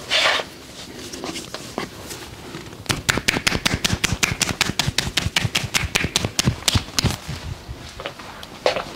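Percussive massage: hands striking a body in a fast, even run of sharp strikes, about seven a second, for roughly four seconds starting about three seconds in. A brief rustle comes at the very start.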